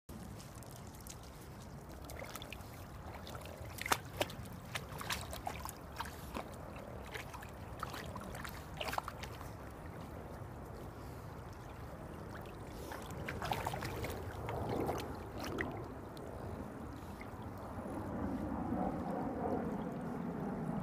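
Shallow lake water splashing and lapping around a wading Boston Terrier, with scattered small splashes in the first half and more continuous water noise building near the end as she starts to swim. A steady low rumble runs underneath.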